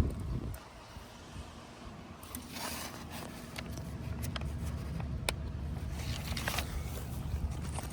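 Hand work inside a car door: scattered clicks and two short scrapes, about two and a half and six seconds in, over a low rumble that builds after a few seconds.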